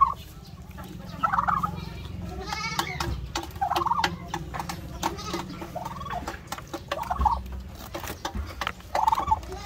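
Turkeys calling: short calls about once a second, with a longer, rattling call about two and a half seconds in.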